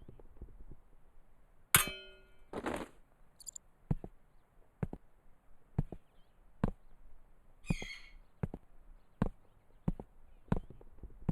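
A single metallic clang about two seconds in that rings on briefly, followed by a steady run of short, sharp knocks a little under one per second, with a brief jingle of metal partway through.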